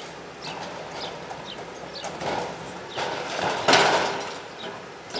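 A metal sign panel being lifted on a crane gives a loud rasping scrape and clatter about three and a half seconds in, with a smaller scraping rattle a little earlier. Through it runs a series of short, high, falling chirps, about two a second.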